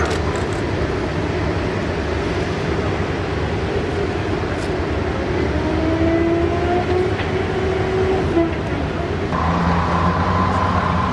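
Heavy engines of M3 amphibious bridging rigs running steadily. A whine slides in pitch midway, and a new steady whining tone starts near the end.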